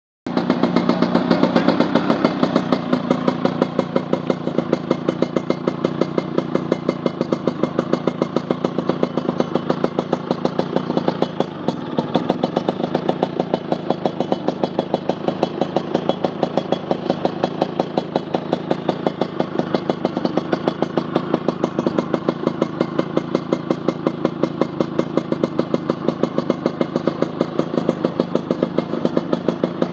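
Motorcycle engine idling through a PRP aftermarket muffler, with a steady, even exhaust beat. It is slightly louder for the first couple of seconds, then settles into a steady idle.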